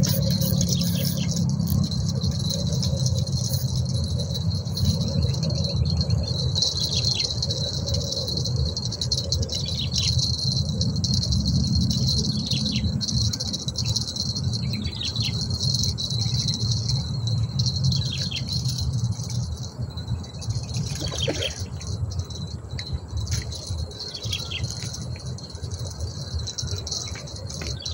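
A steady, high-pitched insect chorus drones without a break. Under it runs a low rumbling noise that eases off after the middle.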